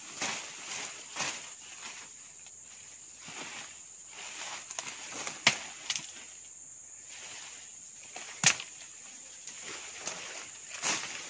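Bamboo stems and undergrowth rustling and snapping as a person pushes through dense brush on foot, with two sharp cracks. Behind it runs a steady high insect drone.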